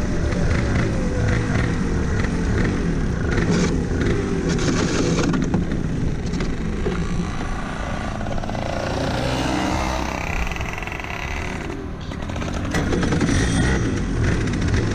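Go-kart's two-stroke engine running at low revs, its note falling in the first couple of seconds as the kart slows to walking pace, with heavy rumble on the onboard camera's microphone.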